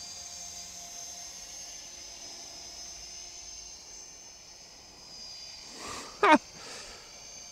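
Faint steady high-pitched whine of a DWI X35 mini quadcopter's motors and propellers in flight. About six seconds in, a brief loud vocal noise from close by, falling in pitch, stands out above it.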